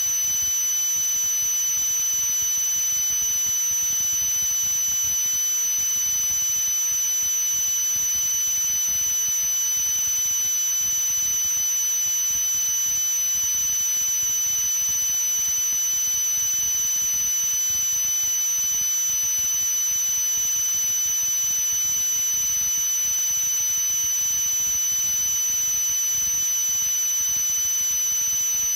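A steady high-pitched tone over a constant hiss, unchanging in pitch and level.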